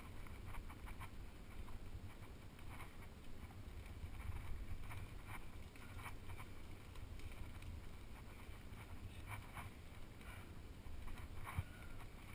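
Low, steady rumble of wind on a head-mounted camera's microphone, with faint, irregular scuffs and clicks as a climber's hands, shoes and gear move against the rock.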